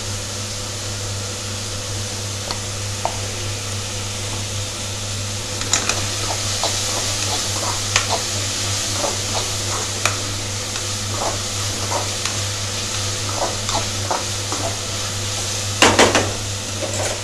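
Chopped vegetables sizzling in oil in a metal kadai while a metal spatula stirs them, clinking against the pan now and then from about six seconds in, with a louder clatter near the end. A steady low hum runs underneath.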